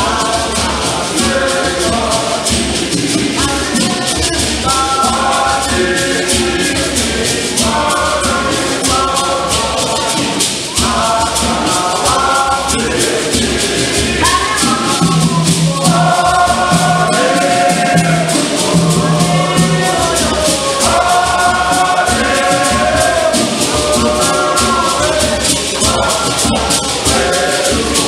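Men's choir singing a hymn in parts, accompanied by gourd shakers (hosho) rattling in a steady rhythm and a tall hand drum.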